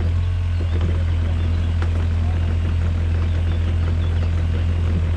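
Yanmar diesel engine of a 2004 Takeuchi TB145 mini excavator idling with a steady low hum.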